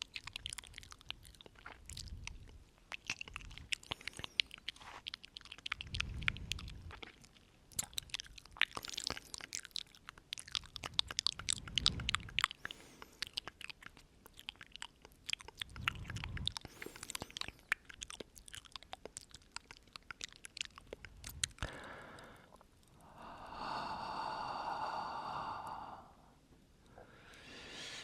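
Close-up mouth sounds with no talking: rapid wet clicks and smacks, broken by a few soft low swells. Near the end comes one held, pitched sound lasting about two seconds.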